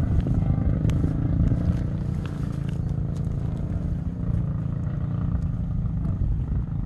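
Portable Bluetooth party speaker playing music at high volume, heard from a distance outdoors, so that mostly the deep bass carries, steady throughout, with a few faint clicks on top.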